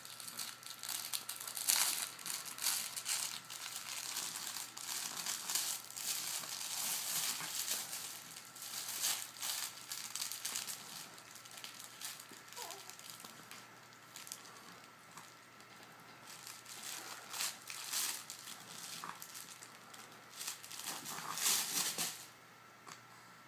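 Irregular crinkling and rustling noises in short bursts, busiest in the first half, fading for a while, then picking up again near the end.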